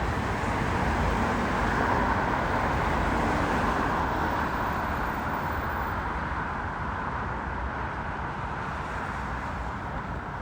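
Jet noise from an Airbus A350-1000's Rolls-Royce Trent XWB engines on descent to land: a broad rushing roar that is strongest about two seconds in and fades slowly as the airliner moves away.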